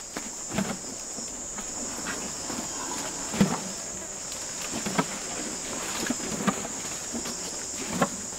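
Steady high-pitched chorus of insects trilling, with a few short, soft knocks or rustles scattered through it, about 3.5, 5 and 8 seconds in.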